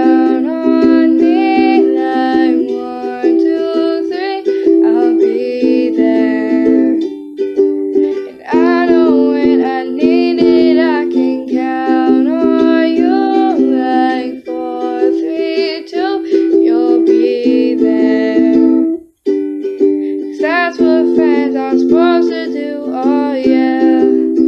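A girl singing to a strummed ukulele. The chords ring steadily under the melody, with a short break about three-quarters of the way through.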